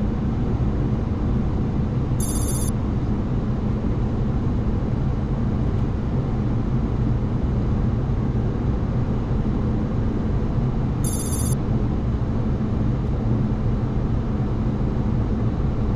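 Steady airflow and engine noise on a Boeing 737-800 flight deck during the descent on final approach. Two short high-pitched electronic chirps sound about two seconds in and again about eleven seconds in.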